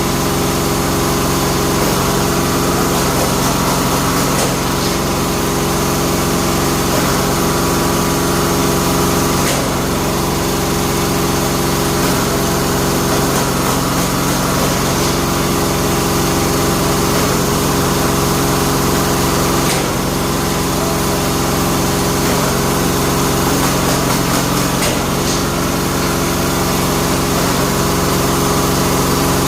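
Bamboo-splitting machine running with a steady, loud motor hum. Its tone shifts slightly every few seconds.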